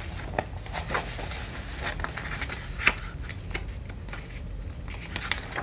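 Pages of a hardcover picture book being handled and turned: a string of short paper rustles and clicks over a low steady hum.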